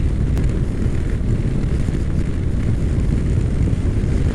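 A Honda NC700X motorcycle under way on the road: a steady low rumble of wind on the microphone, mixed with the bike's engine and tyre noise.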